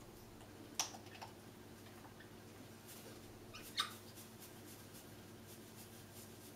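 Congo African grey parrot making three short, sharp sounds: two close together about a second in and a louder one near four seconds, over a faint steady hum.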